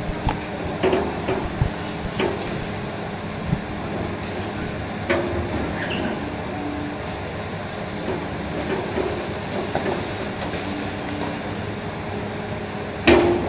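High-reach demolition excavator running steadily while its hydraulic crusher jaw bites into a concrete floor slab, with scattered cracks and knocks of breaking concrete and a few short squeals. The loudest crack comes near the end.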